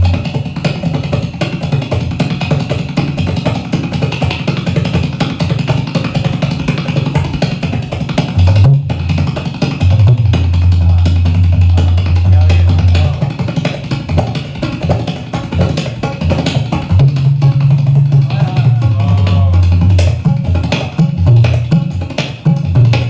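Tabla played in a fast, driving rhythm imitating a running train's wheels and carriages. Dense rapid strokes sit over deep bass tones from the bayan, held long twice in the second half.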